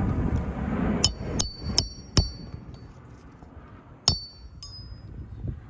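Hammer tapping on metal, each tap followed by a short bright ring. There are four quick taps, then two more a couple of seconds later.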